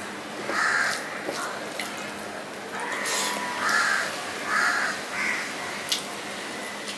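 Crows cawing several times in short, harsh calls. Under them are a few sharp wet clicks of eating rice and fish by hand.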